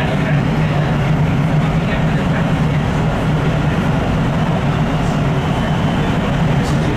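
Rail train running steadily along the track through a tunnel, heard from inside the car: a constant low hum with wheel-on-rail noise, unchanging in pace.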